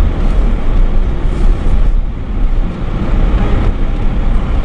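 Car driving slowly along a grassy dirt farm track, heard from inside the cabin: a steady low rumble of engine and tyres on the rough ground.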